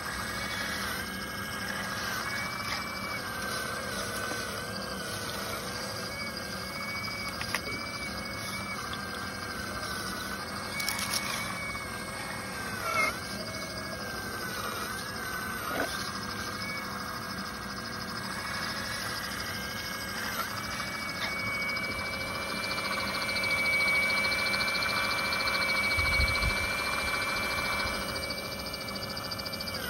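Electric-motor-driven hydraulic piston pump of a scale RC excavator whining, its pitch dipping and wavering as the boom and bucket work under load, with a few short clicks and knocks. About two-thirds of the way in the whine settles into a higher, steadier and louder tone.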